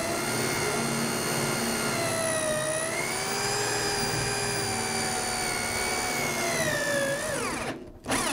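Electric drill spinning a hole saw through a sappy board: a steady motor whine that sags under load a couple of times, then winds down and stops, followed by a short burst near the end. Sap gumming the saw's teeth makes the cut drag and burn, and the hole smokes.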